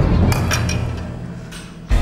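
Dramatic score sting: a loud, deep percussive hit with a few sharp strikes that fade, then a second hit near the end that opens tense orchestral music.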